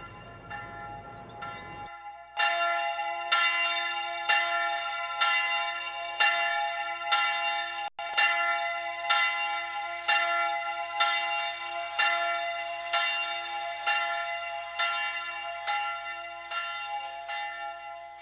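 Church bell tolling, struck about once a second, each stroke ringing on into the next. It begins about two seconds in and slowly fades toward the end.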